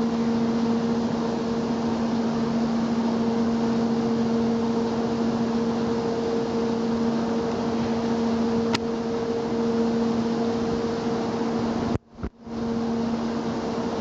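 Steady mechanical hum over a rushing noise, with a low tone and a tone an octave above it held throughout. There is a single sharp click about nine seconds in, and the sound cuts out briefly about twelve seconds in.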